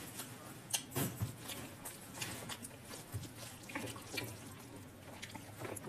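A person eating a wet curry meal, with irregular wet chewing and short mouth clicks.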